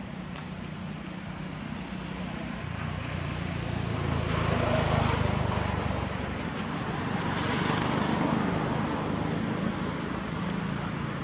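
Low engine rumble of passing motor traffic, swelling twice and fading again over a steady high whine.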